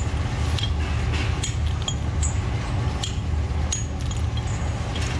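Small hand hammer knocking cast brass valve bodies against a steel block, giving irregular sharp metallic clinks roughly two a second over a steady low hum.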